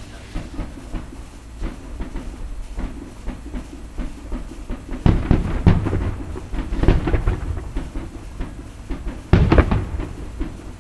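Aerial fireworks bursting: several bangs in quick succession about five seconds in, then another sharp boom near the end.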